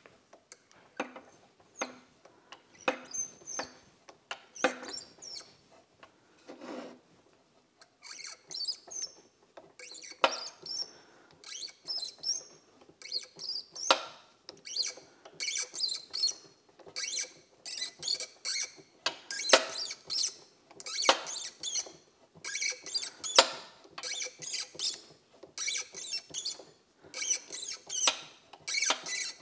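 A quarter-28 bottoming tap is being turned by hand into a small part on a mini lathe, cutting threads in short strokes. It makes a run of short squeaks as it bites, sparse at first and coming thicker and more regularly from about eight seconds in.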